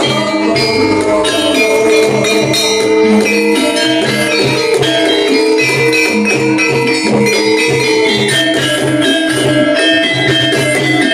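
Gamelan music for an ebeg (kuda lumping) horse-trance dance: repeating metallic melodic tones over a steady drum beat.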